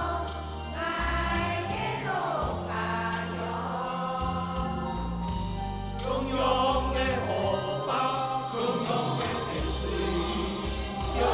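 Amateur mixed choir of older women and men singing a Hakka-language song, the voices sustaining long held notes.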